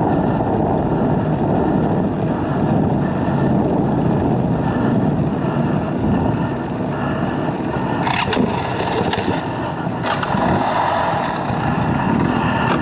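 Dirt bike engine running while the bike is ridden, mixed with a heavy rumble of wind and road noise on the action camera's microphone; the sound shifts about eight seconds in.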